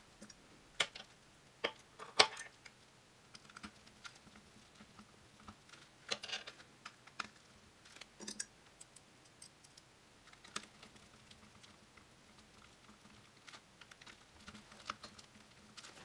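Small screws and a screwdriver handled on a humbucker pickup's metal baseplate while its cable clamp is screwed on: scattered light metallic clicks and taps, with a few sharper ones in the first few seconds.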